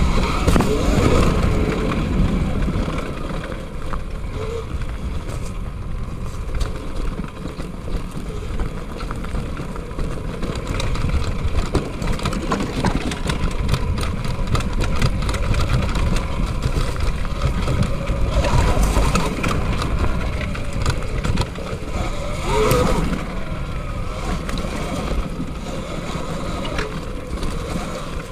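Electric mountain bike ridden along a dirt trail: a steady rumble of wind and tyre noise, with many small knocks and rattles over bumps.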